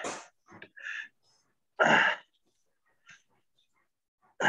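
A person breathing hard from exertion, with three loud, forceful breaths about two seconds apart and softer breaths between.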